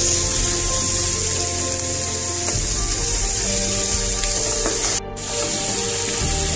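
Chopped onion and capsicum sizzling in hot oil in a non-stick wok, stirred with a wooden spatula. The sizzle cuts out for a moment about five seconds in.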